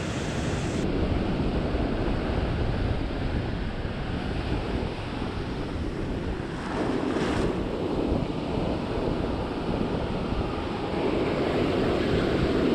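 Ocean surf breaking and washing up a beach, with wind rumbling on the microphone. The wash swells louder about halfway through and again near the end.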